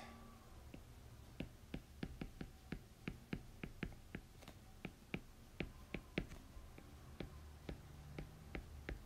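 Faint, uneven taps and clicks of a stylus on a tablet screen during handwriting, a few per second.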